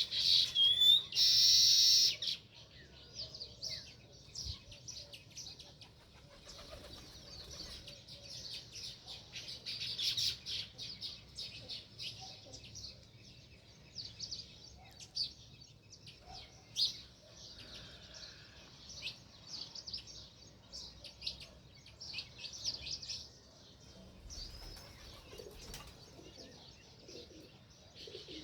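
House sparrows chirping in a steady stream of short, repeated chirps, with a loud burst in the first couple of seconds.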